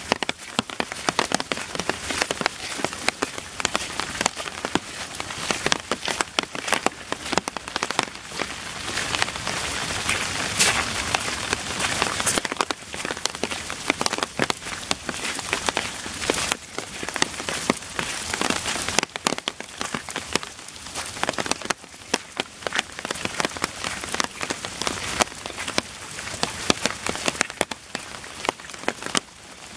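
Rain falling steadily, close drops landing as a dense run of sharp taps over an even hiss. It thickens into a smoother, heavier rush for a couple of seconds about ten seconds in.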